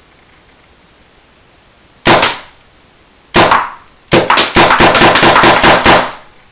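Spyder MRX paintball marker firing: a single shot, another a little over a second later, then a rapid string of about a dozen shots in two seconds.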